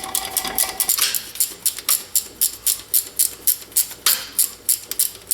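A steady run of sharp clicks or taps, about three a second.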